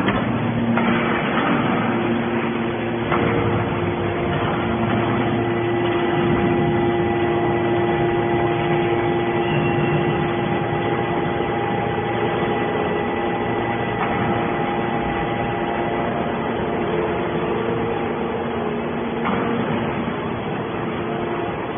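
Hydraulic scrap-metal baler running: a steady machine hum with a few held whining tones from its electric motor and hydraulic pump, shifting slightly in pitch a few seconds in and again near the end.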